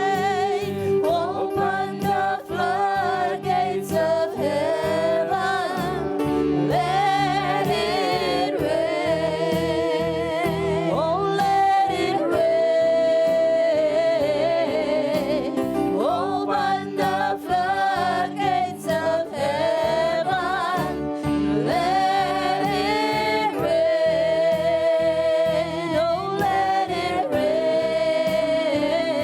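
Gospel worship music: a lead voice singing a slow melody over sustained keyboard chords and a steady beat.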